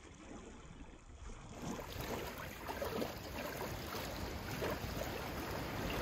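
Choppy open-ocean water lapping and splashing, fading in about a second and a half in and slowly growing louder.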